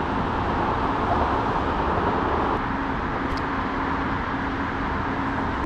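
Steady rushing noise of road traffic, even throughout, with a faint low hum running under it.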